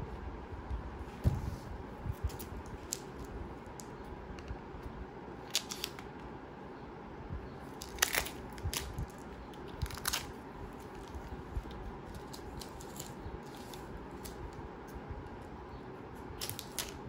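Scattered light clicks and rustles at irregular intervals, the sharpest about a second in and about halfway through, over a steady low hum.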